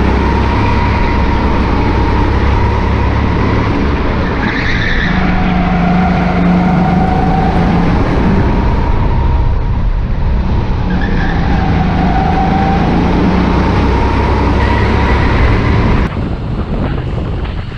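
Go-kart engine running at speed, its revs rising and falling through the corners, with short tyre squeals about four to five seconds in and again around eleven seconds. It cuts off abruptly near the end to a quieter rushing noise.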